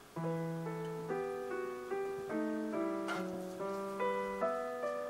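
Background piano music, its notes and chords changing about twice a second.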